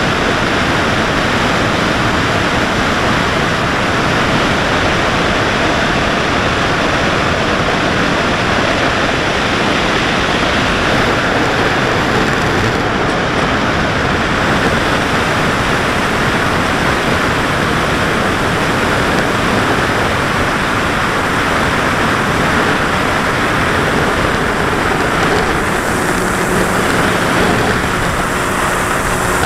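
Steady rushing wind noise on the microphone of an onboard camera, mixed with the electric motor and propeller of a Carbon-Z Cub RC plane in flight. A low steady tone comes through faintly near the end.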